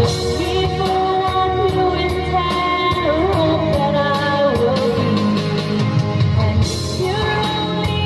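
Videoke backing track with a steady beat, and a woman singing along into a handheld microphone.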